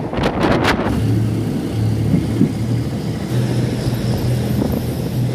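Passenger train running along the track, heard from a carriage window: a steady rumble with a low engine drone and a few sharp clacks in the first second.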